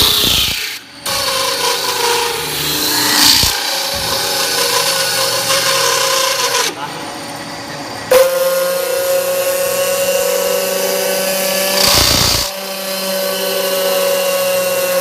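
CNC metal spinning machine running, its forming roller pressed against the metal workpiece spinning on the mandrel: a steady, pitched mechanical whine with a few brief louder rushes.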